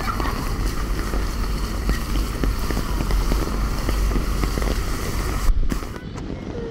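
Heavy rain on a flooded street, with many small splashes of water from wading feet and traffic in the floodwater, over a steady low rumble. The high hiss cuts out abruptly about five and a half seconds in.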